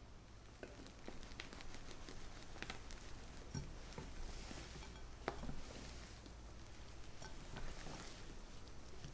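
Balloon whisk folding meringue into strawberry sponge batter in a glass bowl: soft wet squishing of the airy mixture, with scattered light clicks of the whisk against the glass.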